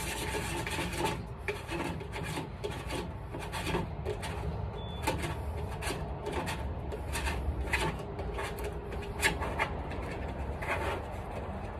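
The bottom end cap of a telescope pier's storage tube being twisted back on by hand: an uneven run of rasping, rubbing scrapes and small clicks as it turns.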